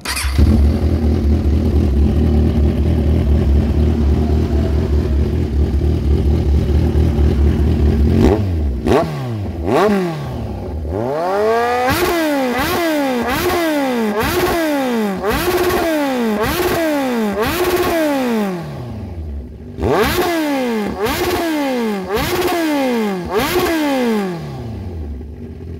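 Kawasaki Z1000 inline-four running through a loud Austin Racing replica exhaust. It idles steadily for about eight seconds, then is revved in quick repeated throttle blips, roughly one a second. Each blip rises sharply in pitch and falls back toward idle, with a brief lull about two-thirds of the way through.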